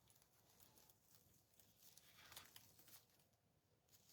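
Near silence, with faint brief rustles of ribbon and artificial greenery being handled while the ribbon is tied around the greenery bundle.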